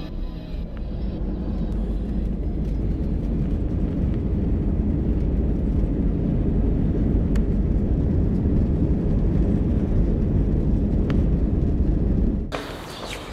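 Steady low rumble of a moving vehicle, growing louder over the first few seconds and cutting off abruptly near the end.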